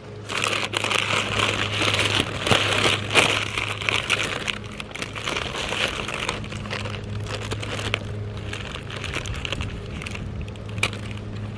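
Paper sandwich wrapper crinkling and rustling as it is unwrapped and handled, busiest in the first few seconds and lighter after that.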